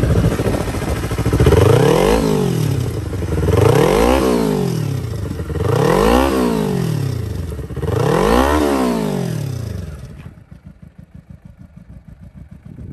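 Kawasaki Ninja 250's parallel-twin engine revved four times, about two seconds apart, each rev rising and falling back toward idle. About ten seconds in the sound drops away sharply, leaving only a faint pulsing.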